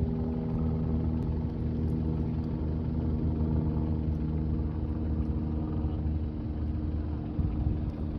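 An engine running steadily: a low rumble with a droning hum, its pitch shifting slightly about halfway through.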